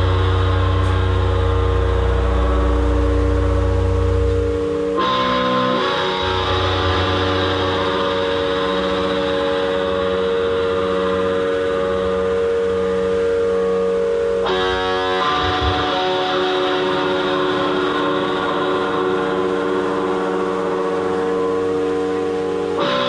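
A live band's amplified guitars hold sustained, droning chords with no drums. The chord changes about five seconds in and again about fifteen seconds in, and a deep bass tone under the opening drops out after about five seconds.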